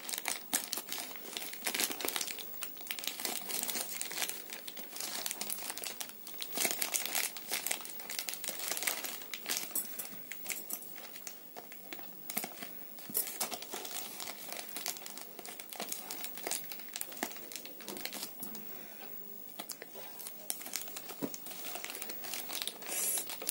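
Plastic courier mailer bag crinkling and rustling in irregular crackles as it is handled and torn open and its contents are pulled out.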